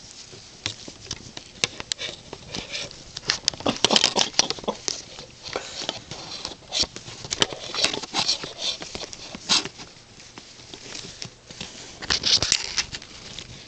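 Close rustling and scuffling of a cat being rubbed by hand while it squirms and paws, with irregular clicks and louder bursts of rustle about four, eight and twelve seconds in.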